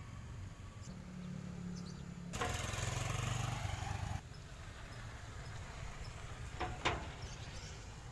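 A vehicle engine running steadily at low speed. It grows louder and noisier for about two seconds near the middle, and two sharp clicks come near the end.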